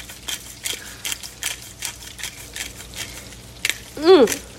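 Pepper grinder being twisted, cracking black pepper in rhythmic clicks, about two or three a second. A short hummed voice sound breaks in near the end.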